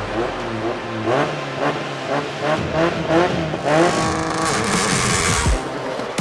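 Rally car engine revving hard through several quick upshifts, the pitch climbing and falling back with each gear change. About four seconds in it gives way to roughly a second and a half of loud rushing noise.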